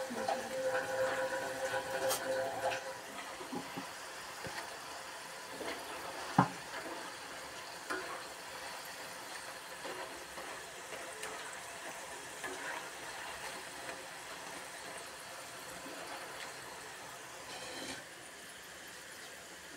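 Potato strips deep-frying in hot oil: a steady sizzle and bubbling, with a few sharp knocks as a spoon stirs them against the pan. The sizzle drops a little near the end.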